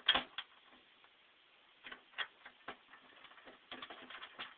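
Metal clicking as bolts go into the nerf-step bracket: a sharp clack just after the start, a few scattered clicks, then a quick run of clicks near the end from a ratchet wrench turning a bolt.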